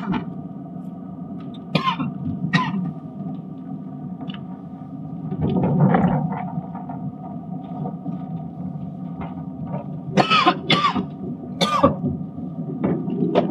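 Steady in-cabin drone of a car's engine and tyres driving down a gentle hill slope, with a few short sharp sounds over it about two seconds in and again near the end.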